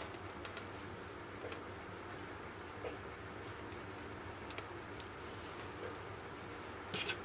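Quiet indoor room tone: a steady low hiss with a few faint clicks, and a short crackly burst about seven seconds in.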